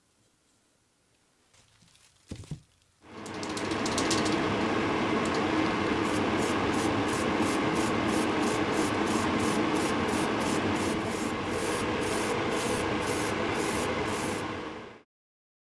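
A power tool abrading a part, such as a sander or wire brush, running steadily with a scraping that comes and goes about twice a second. It starts abruptly after a couple of small knocks and stops suddenly near the end.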